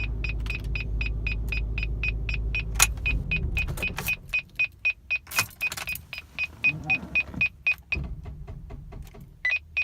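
Cadillac CTS-V's dashboard warning chime beeping rapidly, about four times a second, over the V8 engine's low running rumble. The engine dies about three to four seconds in and the chimes carry on. The chime is the low-voltage warning, a sign of a failing charging system that the owner suspects is the alternator.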